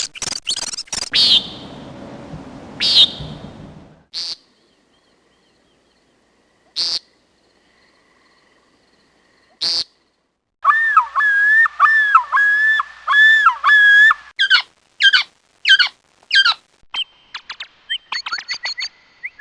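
Songbird calling: a few sharp separate chirps, then a clear whistled phrase repeated about seven times in quick succession around the middle, followed by a string of fast descending chirps and short high notes near the end.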